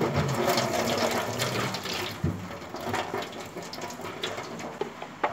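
Hot water from a cup of instant noodles poured into a perforated metal strainer, splashing and draining through the holes into the sink. It starts loud and slowly tapers off, with a light knock about two seconds in.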